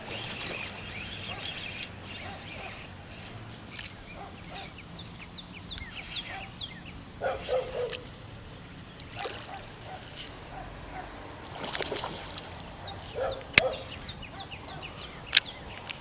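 Birds calling in short, repeated falling chirps, with a few lower, harsher calls. Two sharp clicks come near the end.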